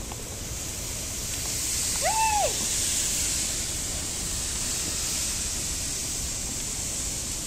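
Plastic sled sliding over snow, a steady hiss that swells about a second in and eases slightly toward the end. About two seconds in, a short cry rises and falls in pitch.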